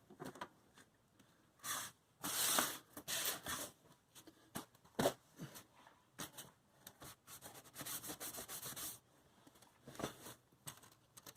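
Irregular handling noises: rubbing, scraping and rustling, with a run of quick scratchy strokes near the end.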